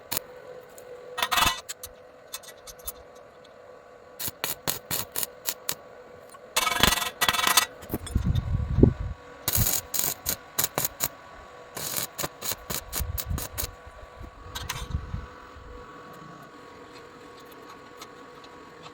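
Metal parts and tools being handled: irregular clicks and short scrapes, a run of quick clicks about two a second from around four seconds in, and heavier knocks around nine seconds. Quieter toward the end.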